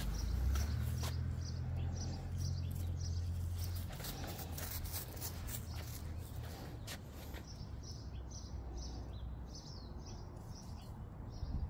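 A small bird chirping over and over, a short high note about twice a second. A low rumble sits under it in the first few seconds and then eases off.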